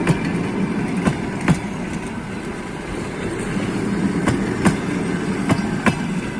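Passenger train pulling out of the station, its coaches rolling past with a steady rumble and wheels clacking over rail joints, the clacks mostly in pairs.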